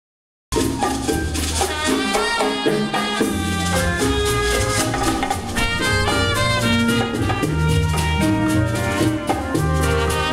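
Live Latin dance band with congas, upright bass and a brass section of trumpets, trombone and saxophone playing an instrumental tune. It starts abruptly about half a second in.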